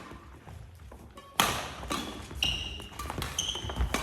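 A badminton racket strikes the shuttlecock sharply about a second and a half in, followed by two short high squeaks of court shoes on the indoor floor.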